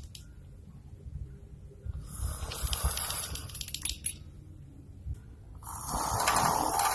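A sleeping man snoring: two long snores, each about two seconds, the second, near the end, louder.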